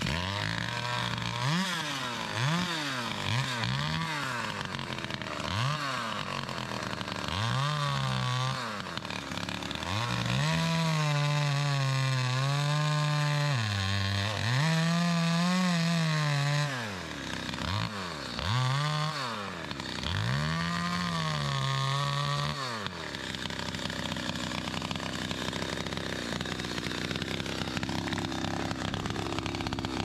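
Chainsaw cutting into a stump, its engine surging up and falling back again and again as it bites into the wood. About three quarters of the way in it drops to a steady lower speed.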